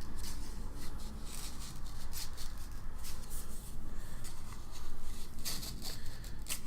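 Paper envelope being opened and handled by hand: irregular paper rustles and scrapes.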